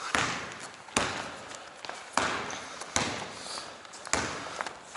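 Basketball bouncing on a hard gym floor about once a second, five times, each bounce echoing through the large hall.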